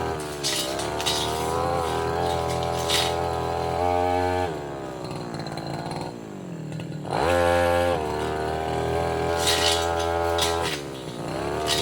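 Tasco 33 Pro two-stroke brush cutter running at full throttle while cutting saplings and roots, with sharp hits now and then. The engine is eased off to a lower, falling pitch a little after four seconds in and revved back up at about seven seconds. It dips briefly again near the end.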